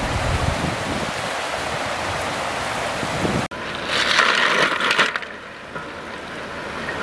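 Shallow river water rushing over stones. Then, after a cut, wet snails poured into a hot wok hiss and sizzle loudly for about a second and a half, settling to a quieter steamy hiss.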